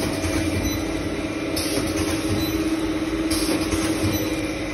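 Ribbon blender and screw conveyor running, mixing and feeding masala powder: a steady machine noise with a constant mid-pitched motor hum and low rumble.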